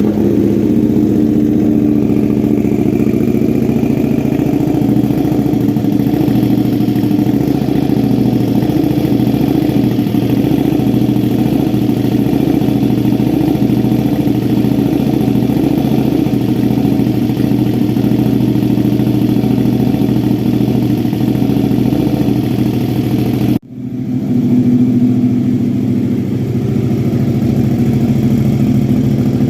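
KTM 1290 Super Duke R Gen 3 Evo's V-twin idling steadily through a full titanium exhaust with the baffle removed. The sound drops out for a moment about three-quarters of the way through, then carries on the same.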